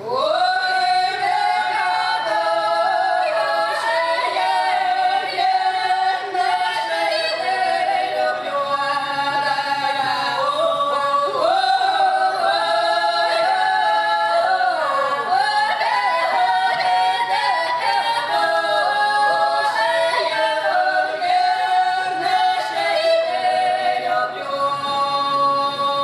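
Three women singing a Russian folk song a cappella in several parts, in the open, full-voiced folk style. The voices come in together right at the start after a brief break and carry on without a pause.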